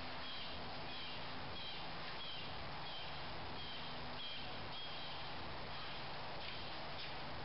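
A bird chirping over a steady outdoor hiss, with short high chirps at about two a second that fade out past the middle. No engine runs.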